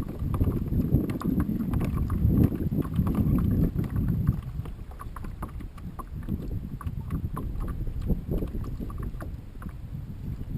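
Water lapping and slapping against a kayak hull, with a low rumble of wind on the microphone that is heavier in the first few seconds.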